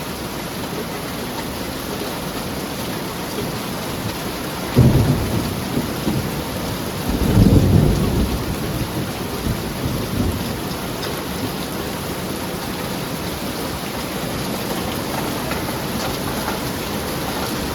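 Heavy rain pouring steadily on a metal roof, with a sudden clap of thunder about five seconds in and a louder rumble of thunder a couple of seconds later.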